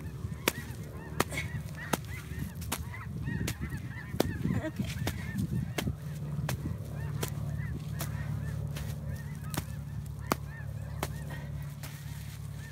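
Small hand hoe scraping and raking wet clay soil, with sharp clicks at an even pace of about one every 0.7 s. Honking bird calls sound again and again among the strokes, and a low steady hum comes in about halfway through.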